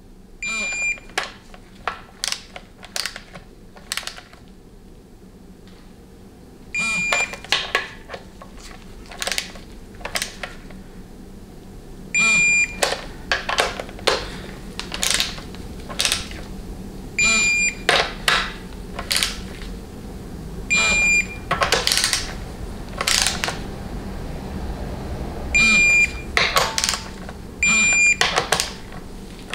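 Digital torque wrench beeping about seven times, short high-pitched beeps a few seconds apart, each as a valve body bolt reaches the set torque of 98 inch-pounds. Between the beeps, the ratchet head clicks.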